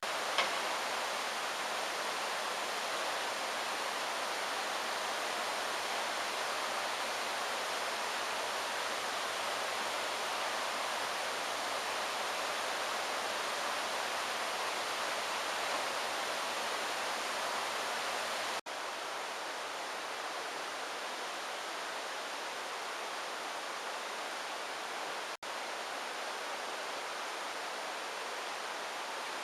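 Steady rushing water, like a stream swollen by typhoon rain, with two abrupt cuts in the sound partway through.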